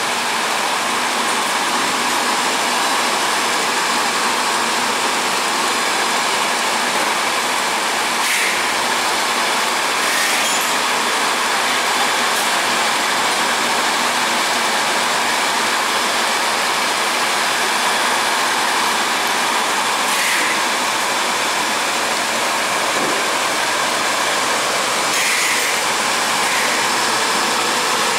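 Electric motor machinery running steadily: a loud, constant, even hum-and-hiss with a few faint clicks, no change in speed.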